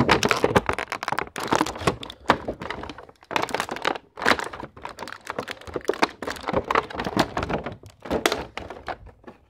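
Toy packaging being handled: a clear plastic blister tray and bag and a cardboard box, giving a dense, irregular run of plastic crinkles, clicks and knocks.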